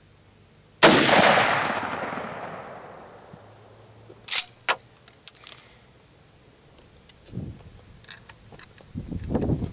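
A single gunshot about a second in, echoing as it fades over about two seconds. A few sharp metallic clinks follow around four to five seconds in, then faint handling knocks near the end.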